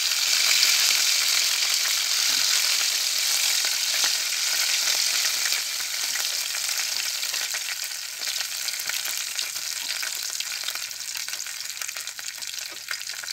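Sigara böreği, rolled yufka pastries filled with kaşar and strained cheese, frying in hot oil in an aluminium pot: a steady sizzle. The sizzle gradually dies down toward the end as fewer rolls are left in the oil.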